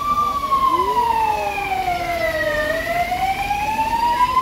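Fire engine siren on a slow wail: a single tone slides down for about two and a half seconds, then climbs back up. A fainter second siren tone glides lower for a moment about a second in, over a steady background noise.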